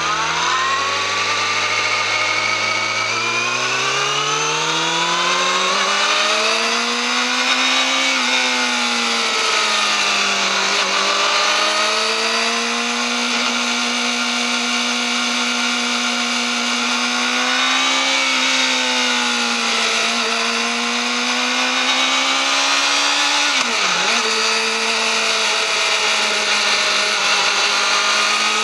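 Yamaha YZF-R6's 600 cc inline-four on its stock exhaust, running hard at high revs. The pitch climbs steadily over the first several seconds, then holds high, with a few brief dips where the revs drop and pick up again, the sharpest about four seconds from the end.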